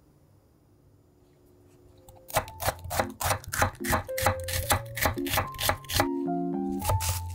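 A chef's knife slicing an onion on a wooden cutting board: quick, regular cuts about four a second, starting about two seconds in. Light background music plays along.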